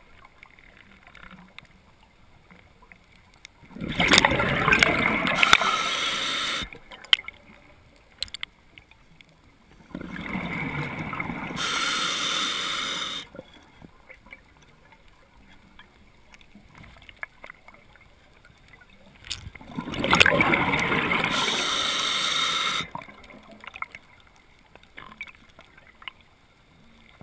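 Underwater bubble noise from a scuba diver's exhalations: three long bubbly rushes, about four, ten and twenty seconds in, each lasting about three seconds, with much quieter stretches between breaths.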